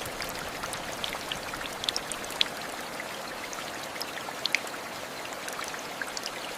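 Steady rain hiss with many scattered sharp drop taps.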